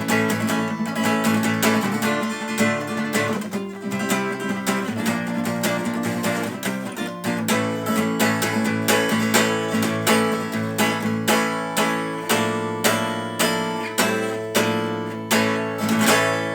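Background music: plucked and strummed acoustic guitar in a steady rhythm.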